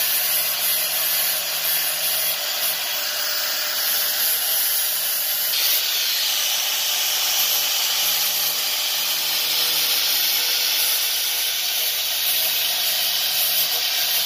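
Corded angle grinder with a thin cut-off wheel running steadily while cutting the quarter-panel sheet metal at the car's rear wheel arch, a continuous high grinding hiss. It gets brighter and harsher a little over five seconds in.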